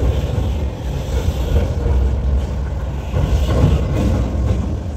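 City street noise with a heavy, steady low rumble.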